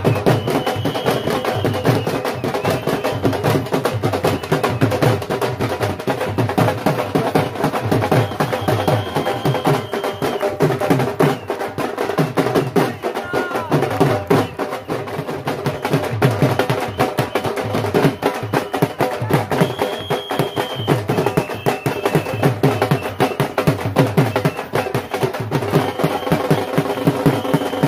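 Several dhols, double-headed barrel drums, beaten with sticks in a fast, steady rhythm, with people clapping along.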